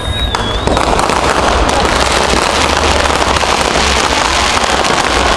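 Fireworks crackling in a dense, rapid run of small bangs that starts about a second in and keeps going, after a brief high whistle at the start.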